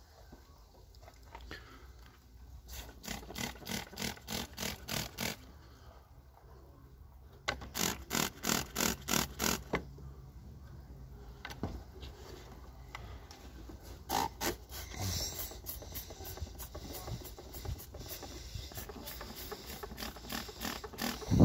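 Hand trigger spray bottle squirting liquid degreaser onto the engine, pumped in quick runs of short hissing squirts at about two to three a second, three runs in all.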